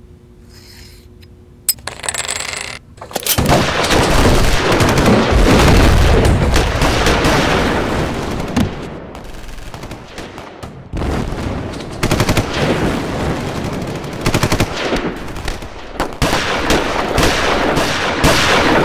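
Automatic-gunfire sound effects: long bursts of rapid machine-gun fire, starting about three seconds in after a quiet start broken by one sharp click.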